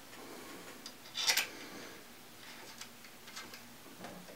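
Faint scattered clicks and light taps of a small hex bolt and the metal bayonet-lug clamp being handled by hand, with one short, louder rustle about a second in.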